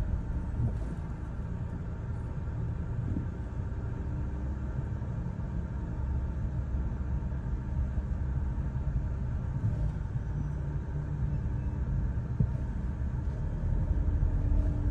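Car driving, with a steady low engine and road rumble and a few faint knocks; the engine note rises slightly near the end.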